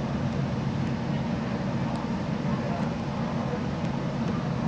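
Downtown Line metro train running at a steady speed through a tunnel, heard from inside the front car: an even, low running rumble.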